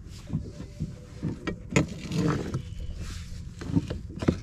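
Knocks and thumps of a fish measuring board and a large speckled trout being handled on a plastic kayak deck: a string of separate sharp knocks, the loudest about two seconds in and near the end, over a low steady rumble.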